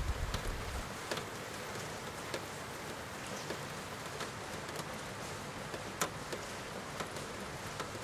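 Steady rain falling, with scattered sharper drops ticking here and there. A low rumble stops about a second in.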